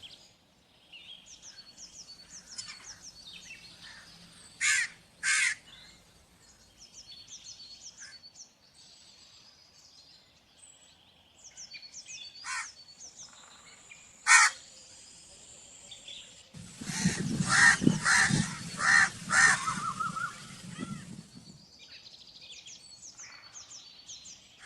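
Crows cawing: two loud caws about five seconds in, two single caws around the middle, then a run of several harsh caws near the end over a louder rush of background noise. Faint, rapid high twittering fills the gaps between the caws.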